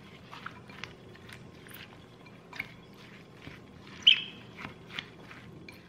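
A silicone spoon stirring wet diced tomato salsa in a glass bowl: short, irregular scraping and squelching strokes, about two or three a second, with one louder, squeaky stroke about four seconds in.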